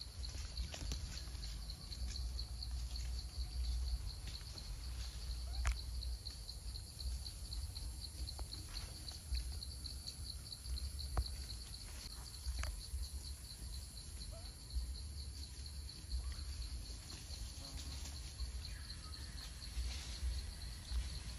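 Insects trilling steadily at a high pitch, a fast even pulsing, over a low rumble, with scattered short clicks and a few brief squeaky chirps.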